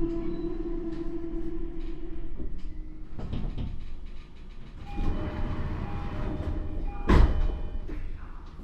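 Toei 10-300 series train's Mitsubishi IGBT inverter whining and falling in pitch as the train brakes; the whine stops a little over two seconds in. After that come running noise and several steady tones, and a loud sudden burst about seven seconds in.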